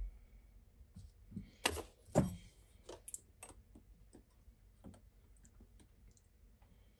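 Light clicks and clatter of kitchen utensils and a plastic buttermilk jug being handled, loudest about two seconds in, then a run of faint scattered ticks.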